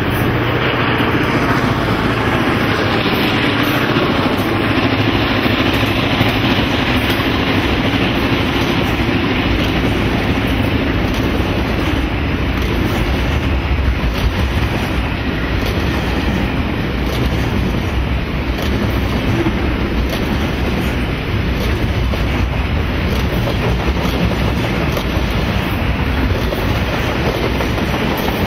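Classic EMD-engined diesel locomotives (VR S313, B74 and X31) run by under power, with a deep engine drone strongest in the first several seconds. After that comes a long train of container flat wagons rolling past with steady wheel clickety-clack.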